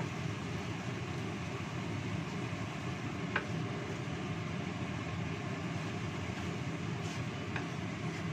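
Spiced coconut sauce sizzling and bubbling in a nonstick wok over the steady rumble of a gas burner, reducing down. A wooden spatula knocks the pan a couple of times.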